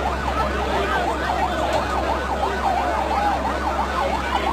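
Emergency vehicle sirens on a fast yelp, the pitch sweeping up and down several times a second, with more than one siren overlapping. A steady low rumble runs underneath.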